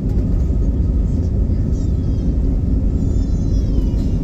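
Cabin noise of an Airbus A320neo with CFM LEAP-1A engines rolling on the ground: a steady low rumble of engines and wheels, with faint high whines that fall in pitch twice.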